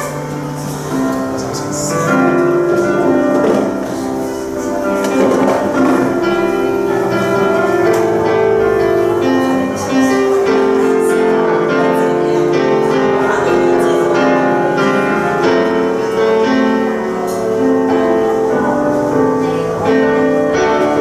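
Grand piano played solo: an improvised piece of chords and melody that runs on without a break.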